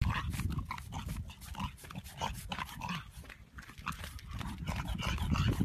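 French bulldog puppy making many short sounds in quick succession.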